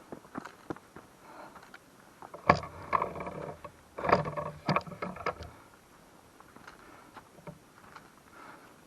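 A hiker's footsteps on a trail, as soft ticks, with two louder bouts of rubbing and knocking noise about two and a half and four seconds in.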